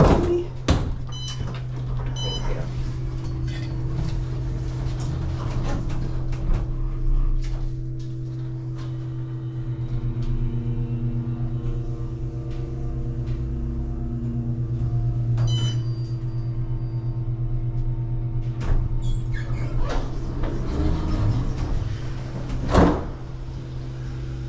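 Otis passenger elevator running: a steady hum as the car travels, with the sliding doors closing about a second in and sliding open again near the end, and a few sharp clicks along the way.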